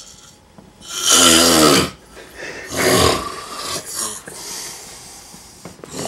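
A man snoring in his sleep: one loud, long snore about a second in, a shorter one about a second later, then softer snoring breaths.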